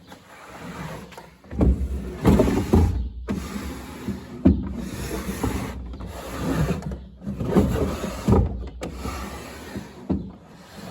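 Wood rubbing and scraping in a series of strokes, each a second or two long with short breaks between, with a few sharp knocks among them.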